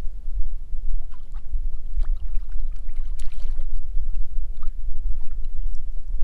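Wind rumbling on the microphone over the water, with small water splashes and drips around a kayak scattered through, busiest about three seconds in.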